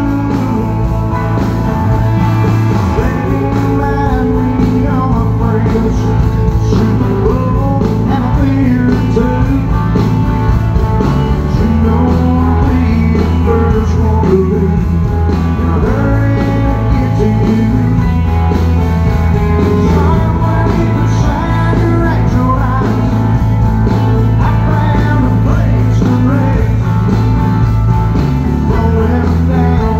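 Live country band playing loud through a concert PA, heard from the audience: electric guitars, bass and drums, with a male lead vocal.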